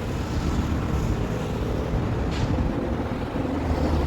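Bucharest Metro M2 line train running, a steady low rumble, with a brief hiss about two and a half seconds in.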